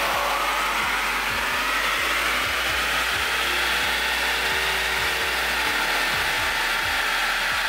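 Ford Ranger 3.2 five-cylinder turbo diesel engine pulling under full load on a chassis dynamometer, climbing in pitch over the first few seconds and then holding at high revs. A music track with a steady beat plays along with it.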